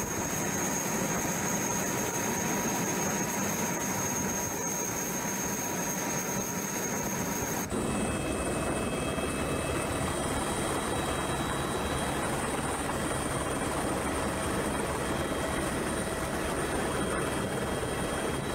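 Helicopter running: a steady, loud rush of rotor and wind noise with a thin high whine over it. About eight seconds in the sound cuts to inside the helicopter's open-sided cabin, and the pitch of the whine changes.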